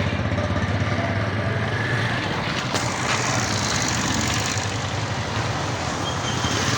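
Motor vehicle engine running steadily with a low, rapid throb, amid street traffic noise. A single sharp click about three seconds in.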